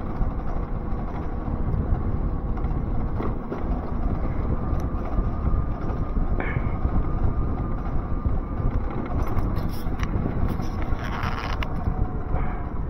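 Ion Mobility M1S electric scooter's 5 kW motor humming ('ngung-ngung') while riding, with a faint steady whine under wind and road rumble.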